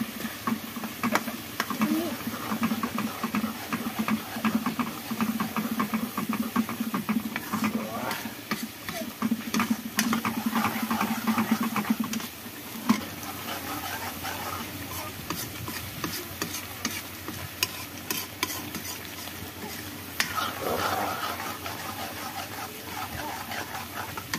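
Metal spatula scraping and clinking rapidly against a metal kadai as a masala paste with yogurt is stirred and fried, the oil sizzling. About twelve seconds in the stirring eases and a quieter steady sizzle with occasional scrapes carries on.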